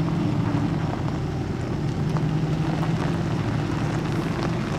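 An engine running steadily with a low hum.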